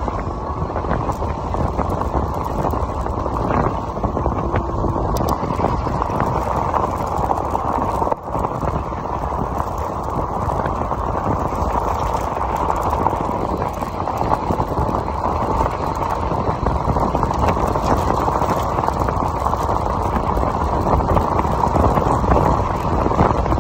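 Steady road noise from a Voltbike Yukon 750 fat-tire electric bike riding on a gravel road: its tyres run over loose gravel while wind rushes over the handlebar-mounted microphone.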